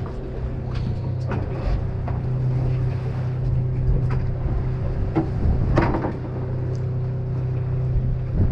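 Party fishing boat's engine running with a steady low hum. A few short knocks and clatters sound over it, the loudest about six seconds in.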